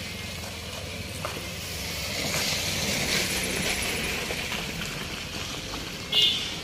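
Vehicles passing on a rough rural road: an SUV drives close by, its engine and tyre noise swelling and then fading, with motorcycles running nearby. A short high-pitched sound near the end is the loudest moment.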